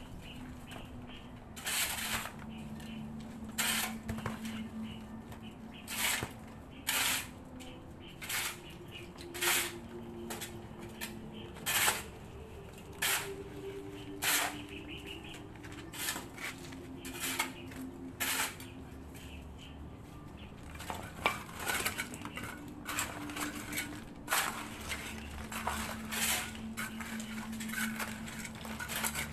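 Chunks of broken concrete and brick from a cement tomb niche clinking and knocking against each other as they are handled and set down, in irregular sharp knocks every second or two.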